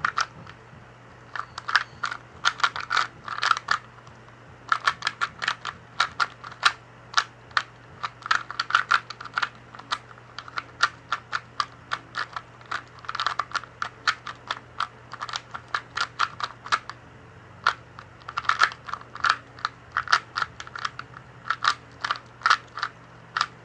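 A 2x2 Rubik's cube turned fast in a speed solve: rapid plastic clicking of the layers, in runs of turns with brief pauses between them. A faint steady low hum underneath.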